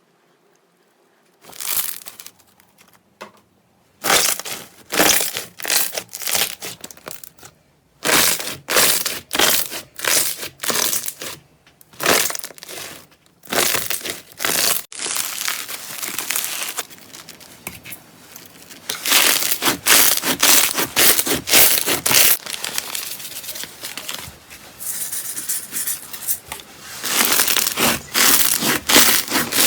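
Slime being squeezed and pressed by hand, crackling and crunching in quick clustered bursts with short pauses between them.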